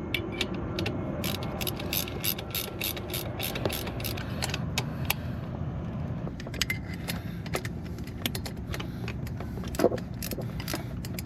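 Hand ratchet wrench clicking in quick runs of several clicks a second as the turbo-to-manifold nuts are tightened, then sparser clicks, with one louder metal knock near the end.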